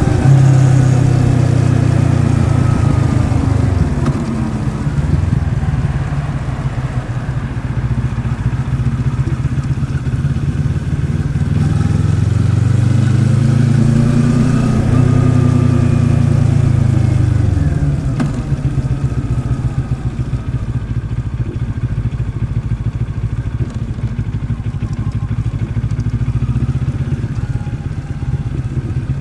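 2023 Moto Morini X-Cape's 650cc liquid-cooled parallel-twin engine under way. It is strong at first, then drops in pitch a few seconds in. It climbs again through the middle, falls off about two-thirds of the way through, and then runs more quietly at lower revs.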